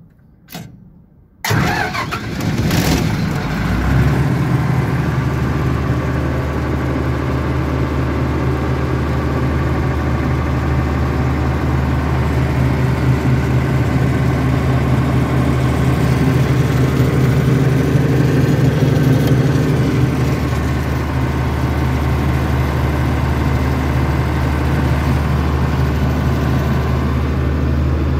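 Denyo diesel generator being started with its key switch: a click, then the electric starter cranks the engine for about two and a half seconds until it catches. The engine then runs steadily at an even, constant speed.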